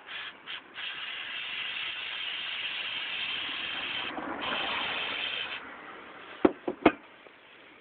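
Aerosol cleaner spraying in a few short spurts, then a long steady blast, a brief pause and another blast, cleaning the IAC valve's mounting surface. Three sharp clicks follow near the end.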